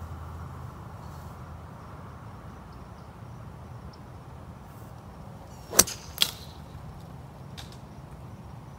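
Golf club striking a ball off the fairway turf: one sharp click a little under six seconds in, followed less than half a second later by a second, softer click.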